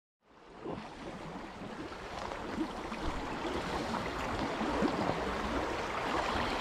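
Fast-flowing river water rushing over a shallow run, an even wash of noise that fades in from silence just after the start and builds steadily louder.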